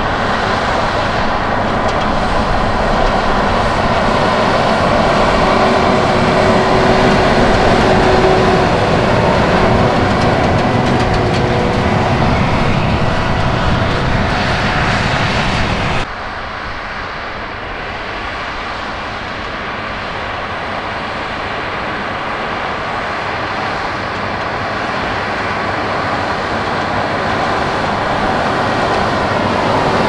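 John Deere 7R.330 tractor's six-cylinder diesel working under load, with a Krone HDP II big square baler running behind it as it picks up and bales straw: a continuous mechanical drone. The sound drops suddenly about halfway through, then slowly grows louder again.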